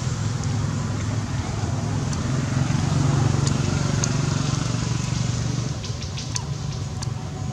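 Steady low hum of an engine running, with a few faint short high ticks in the second half.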